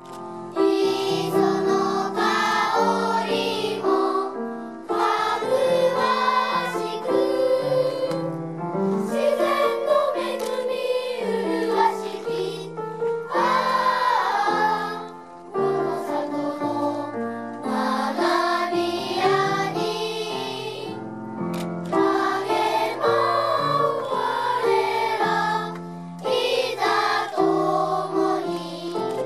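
Children's choir singing a school song in unison to grand piano accompaniment. The piano, damaged in a tsunami, has been repaired and its tone restored.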